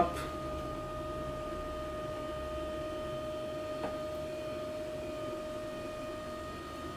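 Lift motor of a Tresanti electric adjustable-height desk running steadily as it raises the desk, a constant even whine, with one faint click about four seconds in.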